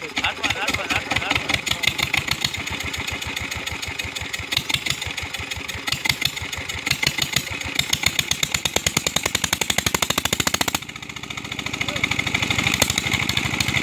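16 hp diesel engine running just after catching from a hand-crank start, puffing white smoke as it warms from cold. Its evenly spaced firing beats grow quicker and stronger, then the sound drops abruptly about eleven seconds in and builds back up.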